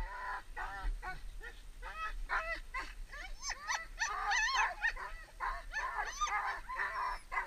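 A team of sled dogs in harness yelping and yipping: many short, high, overlapping calls, coming thicker and faster from about halfway through. It is the excited noise of dogs lunging in their lines, eager to run.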